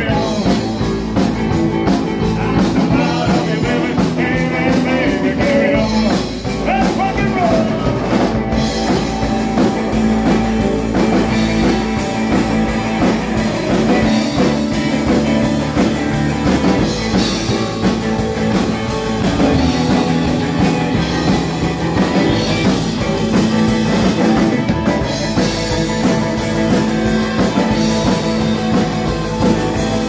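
Live rockabilly band playing electric guitars, electric bass and drum kit, a loud rock and roll song with a steady beat.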